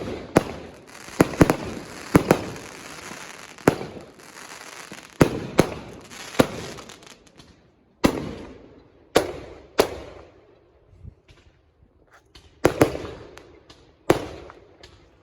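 Fireworks going off: about fifteen sharp bangs at irregular intervals, some in quick pairs, each trailing off, with a hissing crackle between the bangs in the first few seconds.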